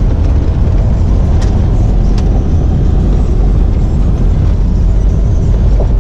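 Strong wind buffeting the microphone: a loud, steady, blustery rumble.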